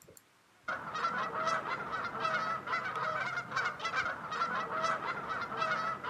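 A flock of waterfowl honking, many short calls overlapping at a few a second, starting abruptly less than a second in.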